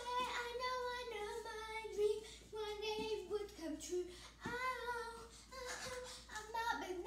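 A young girl singing unaccompanied, mostly long held notes that slide from one pitch to the next.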